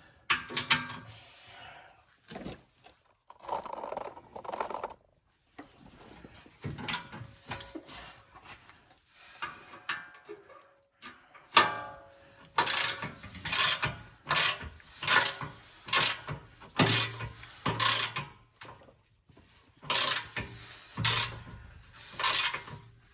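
Hand ratchet wrench clicking through repeated short strokes, working a tight, rusty bolt loose, with a few irregular metal clanks earlier on.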